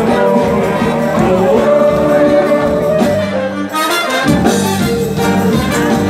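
A live band plays loud, dense music on electric bass, drum kit, percussion, guitars and keyboard. The low end drops out briefly about four seconds in, then the band comes back in.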